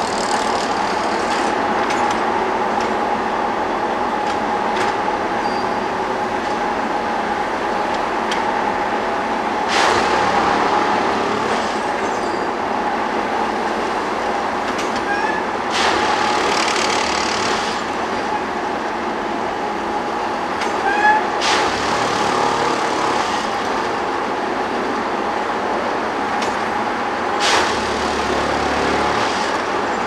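Plasser & Theurer 08-32U multiple tie tamper working, tamping ballast: a steady machine drone with a held whine, and a louder hissing surge about every six seconds, four times, as the tamping cycle repeats.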